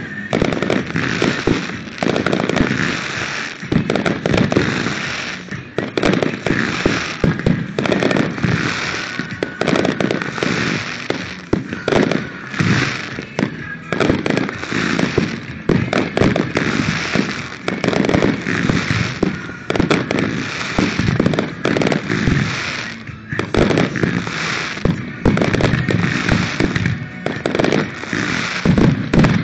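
Fireworks display: a dense barrage of aerial shells going off in rapid succession, bursts and crackling overlapping with no break.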